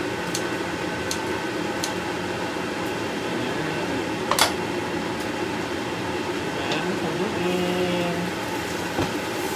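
Kitchen scissors snipping a chili a few times, then a sharp clink about four seconds in, over a steady fan-like hum.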